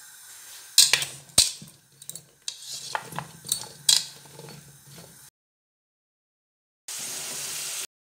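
Tongs clicking and scraping against a ceramic bowl as salted raw potato chips are tossed, with a few sharp knocks. After a few seconds of dead silence, about a second of hot oil sizzling steadily around chips deep-frying.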